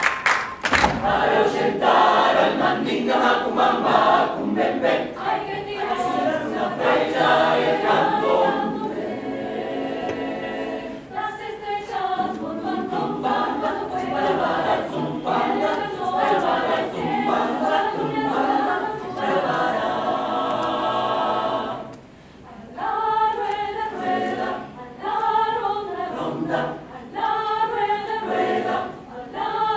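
Mixed choir singing a cappella in harmony, with a hand clap or two at the very start and a short break in the singing about two-thirds of the way through.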